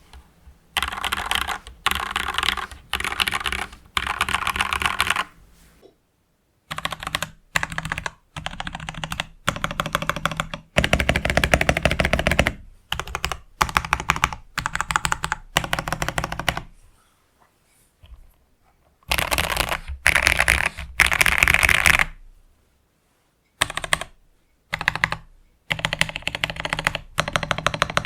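Mechanical keyboard being typed on in quick runs of clacking keystrokes, with short pauses between the bursts.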